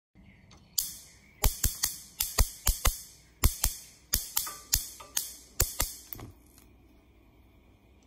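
Gas stove burner's spark igniter clicking, a sharp snap about three to four times a second, often in quick pairs. The clicking stops about six seconds in, once the burner has lit.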